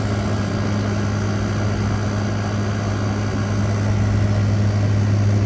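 2023 General Electric 5,000 BTU window air conditioner running on high cool: the compressor and condenser fan make a steady low hum over an even rush of air. The compressor is cooling, with its accumulator starting to sweat.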